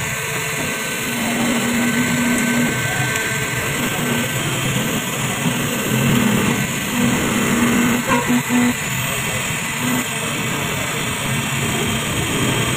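Model 368A key duplicating machine running, its rotary cutter milling a key blank, with a low hum that comes and goes as the cutter works along the blade.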